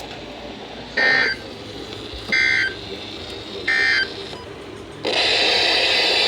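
Emergency Alert System end-of-message (EOM) signal: three short bursts of warbling digital data tones, a little over a second apart, closing out the severe thunderstorm warning. About five seconds in, a loud steady hiss of radio static begins.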